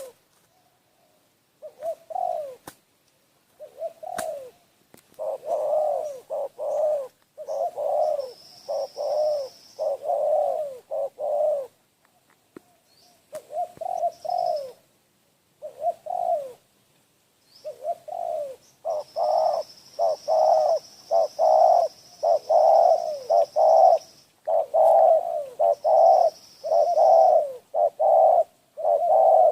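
A dove cooing over and over, in runs of quick coos separated by short pauses, growing more continuous in the second half. A faint, thin, high hiss comes and goes behind it.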